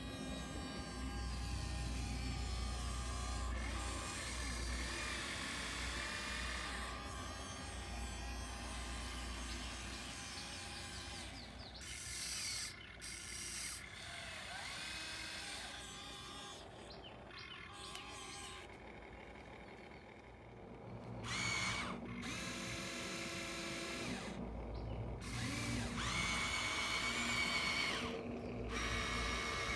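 Small electric motors of a radio-controlled model excavator whining as it works, stopping and starting abruptly several times.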